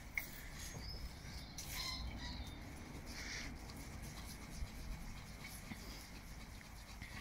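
Wooden stick stirring and smearing thick acrylic hoof glue mixed with rubber powder on a piece of cardboard: faint, soft scraping strokes.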